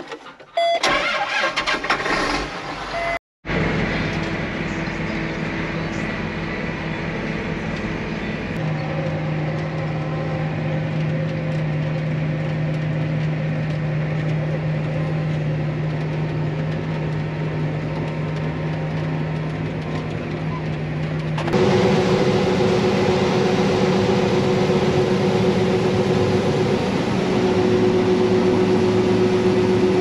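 A few short knocks in the first seconds, then a John Deere tractor's diesel engine running steadily, heard from inside its cab. About two thirds of the way through the sound changes abruptly to a louder, steady hum: a John Deere 9670 STS combine running while harvesting corn, heard from inside its cab.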